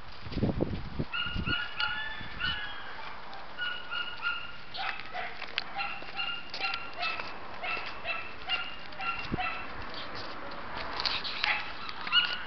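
A dog whimpering and yipping in many short, high, repeated notes, mostly in twos and threes, over a steady hiss. A few low thumps come in the first second or so.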